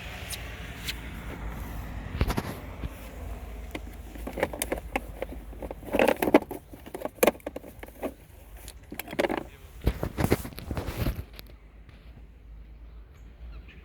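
Steady low car rumble with irregular rattling knocks and scrapes on top, thickest in the middle and around ten seconds in, thinning out near the end.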